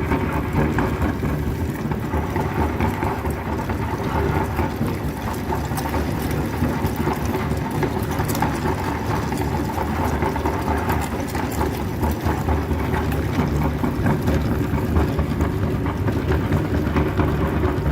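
Electric meat grinder's motor running steadily with a low hum, with scattered faint clicks from the mechanism.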